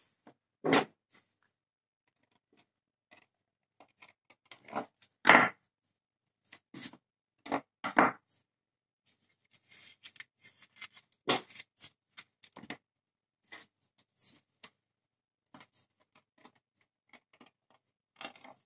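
Hands working pastry lattice strips on a fluted metal tart tin: scattered short knocks and scrapes, a few louder ones, with quiet gaps between.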